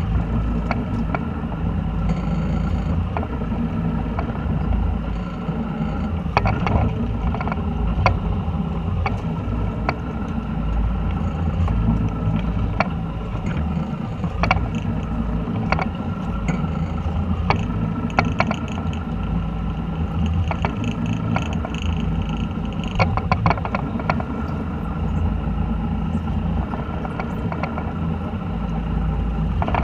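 Boat engine running at a steady speed with a constant low drone, under scattered sharp clicks and knocks.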